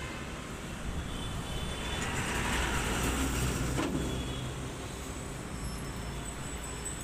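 Road traffic rumbling steadily. About two seconds in, a motor vehicle passes close by, its noise swelling and then fading again by about four and a half seconds.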